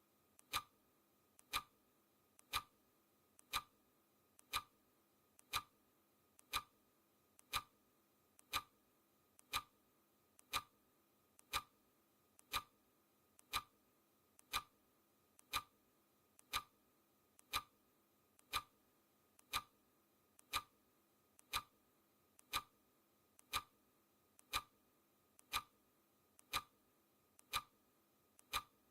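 Clock-ticking sound effect: a sharp tick once a second, each with a fainter click just before it, keeping time for a countdown timer.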